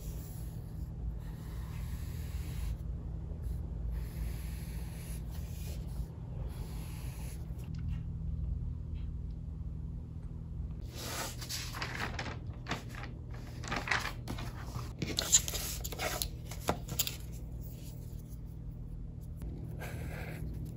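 Highlighter tips scratching across notebook paper in short strokes, with a few sharp clicks, mostly in the second half, over a steady low hum.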